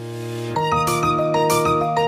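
Background music: a held chord swells in, then about half a second in a bright melody of short notes starts over a steady bass note and a light beat.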